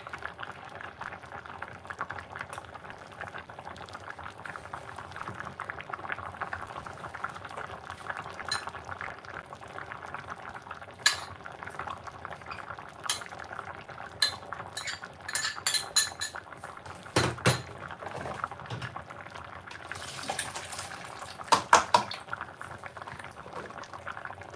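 A large pot of vegetable broth bubbling at a rolling boil on the cooker, the liquid base for turn cornmeal before the cornmeal goes in. Over the second half come scattered clinks and knocks of pots and utensils, the loudest a quick cluster near the end.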